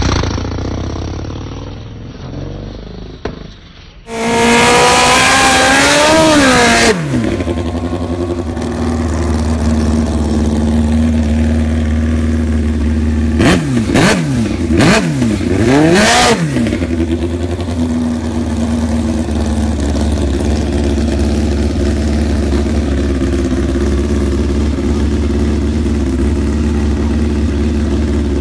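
A drag motorcycle engine revs hard for about three seconds, its pitch climbing and then dropping, then cuts off abruptly. A drag motorcycle engine then idles steadily, blipped three times in quick succession about halfway through.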